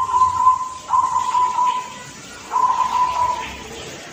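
Young zebra dove (perkutut) cooing its 'klaar-ke-te-kung' song. A coo phrase runs on into the start, then two more phrases of about a second each follow, with short pauses between, all at one steady pitch.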